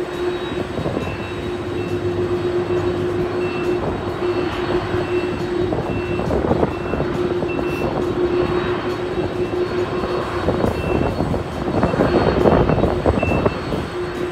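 Jet airliner engines running with a steady whine over a rumble, growing louder about twelve seconds in. A faint short beep repeats regularly, under a second apart.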